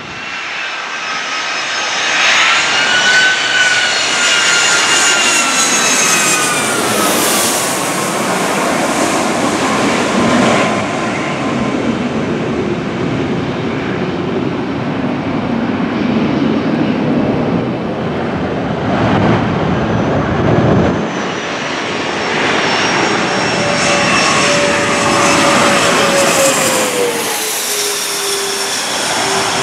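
Jet airliners passing low on approach, engine whine falling in pitch as each goes by: one pass in the first several seconds and another near the end.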